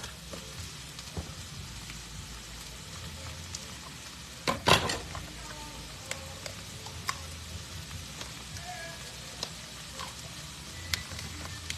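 Cauliflower rice and bean sprouts sizzling in a hot pan: a steady frying hiss with scattered small pops and ticks. A single loud knock or clatter about four and a half seconds in.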